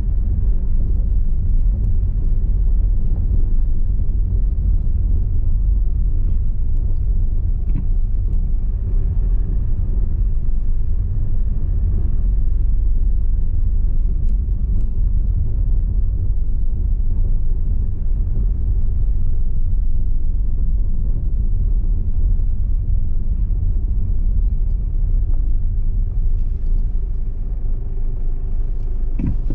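Steady low rumble of a car driving slowly over cobblestones, heard from inside the cabin: tyre and road noise with the engine underneath. A brief knock near the end.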